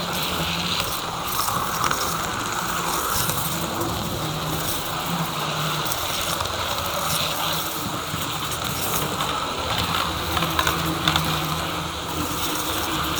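HO-scale model train running steadily on the track: the small electric motor whines and the wheels rattle and tick over the rails.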